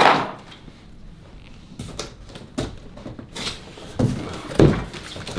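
Flat-pack furniture panels being pulled out of their cardboard box: a sudden scraping rush at the start, then scattered scrapes and knocks of board against cardboard, with a heavier thump about four and a half seconds in.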